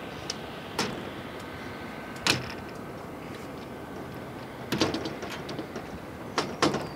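Metal-framed solar panel being seated onto ground-mount racking rails: scattered sharp knocks and clacks of the frame against the rails and clamps, with a cluster about five seconds in and two more near the end.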